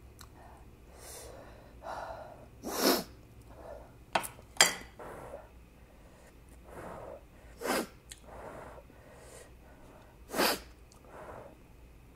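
Sharp, breathy mouth and nose sounds of someone eating very spicy instant noodles: about five short hissing intakes a few seconds apart, with fainter breathing and eating sounds between them.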